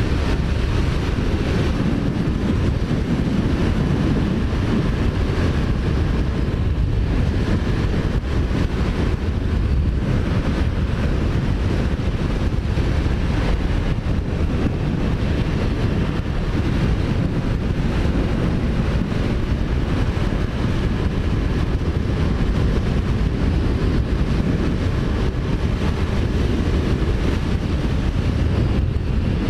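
Kawasaki Ninja 400's parallel-twin engine running steadily at road speed, with wind noise rushing over the microphone.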